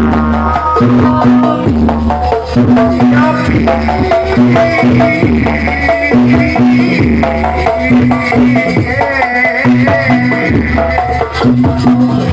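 Jaranan accompaniment music from a live percussion ensemble, playing a steady repeating pattern of low booming strokes under short, struck melodic notes. A high, wavering melody line joins about five seconds in.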